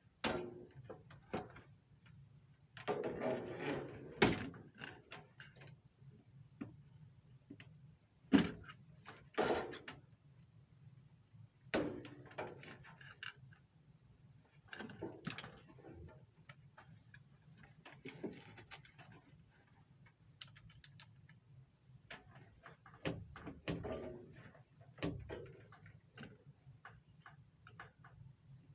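Intermittent clicks, knocks and handling noises from hand work mounting a UV light transformer on an air handler, over a faint steady low hum. The sharpest knocks come about 4 and 8 seconds in.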